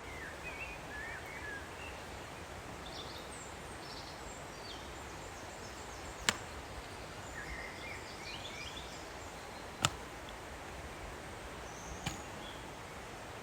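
Firewood being broken: three sharp wooden cracks a few seconds apart, about halfway in, later, and near the end, over a steady outdoor hiss with scattered small bird chirps.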